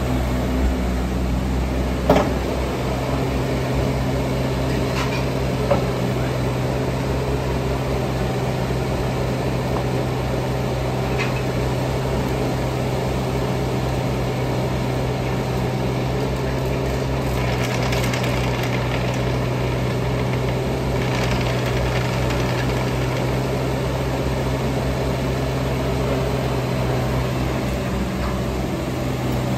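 JCB 16C-1 mini excavator's diesel engine running at a steady speed while the hydraulics slew the upper structure around. There is a sharp knock about two seconds in and a lighter one near six seconds.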